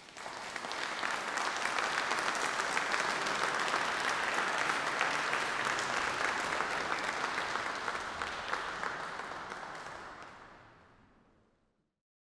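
Audience applauding at the end of the piece: dense clapping that builds over the first second or two, holds steady, then dies away near the end.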